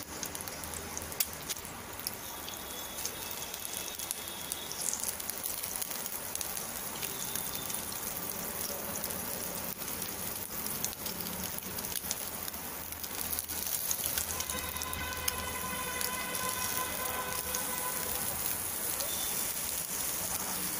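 Halved boiled eggs shallow-frying in oil in a pan: a steady crackling sizzle with many small spattering pops.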